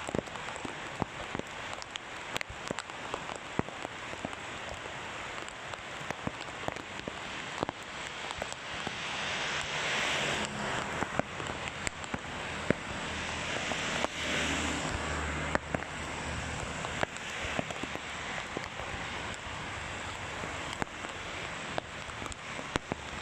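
Heavy rain falling steadily on a road, with many sharp raindrop taps close by. Passing vehicles swell the hiss twice, about nine and fourteen seconds in, with tyres on the wet road.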